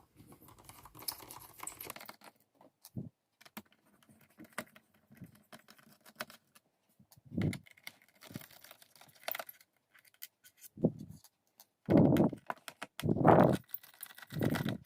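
Scattered small clicks and ticks of a screwdriver backing screws out of a laptop's plastic bottom case, with small screws clinking as they are handled. Several louder, duller sounds come in the last few seconds.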